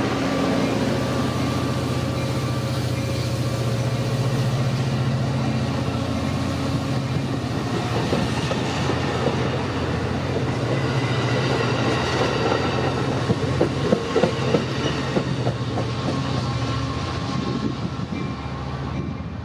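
Bilevel passenger train cars rolling past: a steady engine drone fades as the leading locomotive draws away, and the wheels clack over rail joints partway through. The sound dies down near the end as the last car clears.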